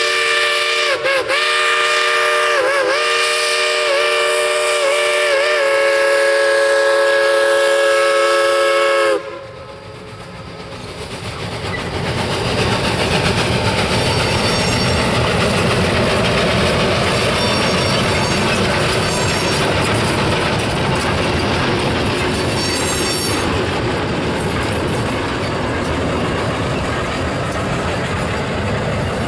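A Shay geared steam locomotive's chime whistle sounds one long blast of several notes at once, its pitch dipping briefly a few times, then cuts off abruptly about nine seconds in. After it, freight cars roll past with a steady wheel-on-rail rumble and clickety-clack, with faint high wheel squeals at times.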